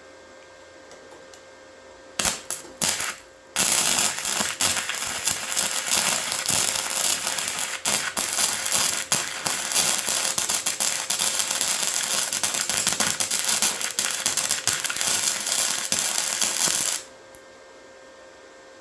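Flux-core welding arc from a Titanium 125 welder running .035 wire. It sputters in a few short starts about two seconds in, then crackles steadily while laying a bead for about thirteen seconds and cuts off abruptly.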